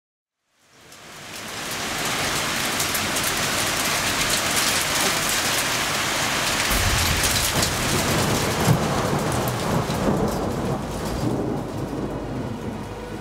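Steady rain falling, fading in after a brief silence, with a deep rumble of thunder joining about halfway through.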